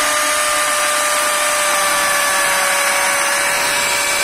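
Bosch GSB 550 corded impact drill running steadily at full speed, its bit pressed into a block, with an even motor whine.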